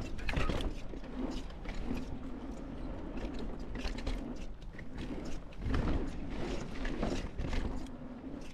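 Mountain bike ridden over a rough dirt trail: the rear hub's freehub ratcheting steadily as the bike coasts, with clattering knocks from the chain and frame over bumps. The loudest knocks come about half a second in and around six seconds in.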